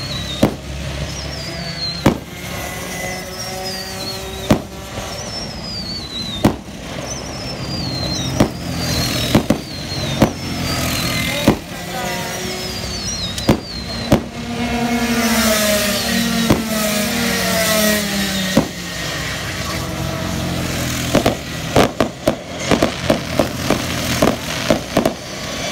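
Aerial fireworks shells bursting with sharp bangs roughly every two seconds, then a rapid crackling volley near the end. Under them, racing kart engines run and pass on the track, one falling in pitch about two-thirds of the way through.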